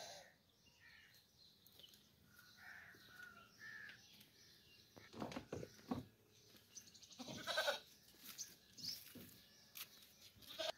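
Goats bleating now and then, the loudest call about three-quarters of the way in.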